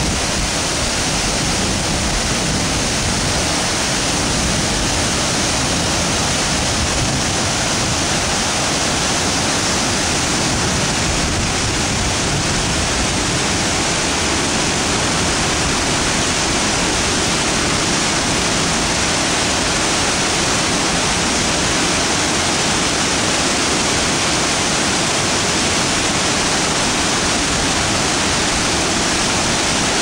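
Water released through a dam gushing and churning into the river below: a loud, steady rush of white water that holds unchanged throughout.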